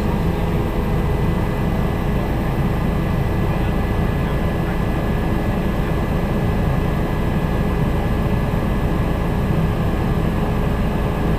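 Helicopter in flight heard from inside the cabin: a steady drone of rotor and engine, with a few constant high whining tones over it.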